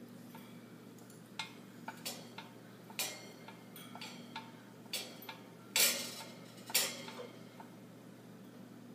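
Scattered sharp clicks and metallic clinks from a pet parrot moving and playing in its wire cage, the two loudest a second apart about six seconds in, each with a short ring.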